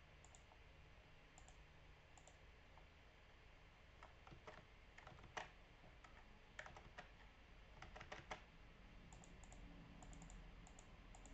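Faint, scattered clicks of a computer mouse and keyboard over quiet room tone, a handful of them bunched in the middle of the stretch.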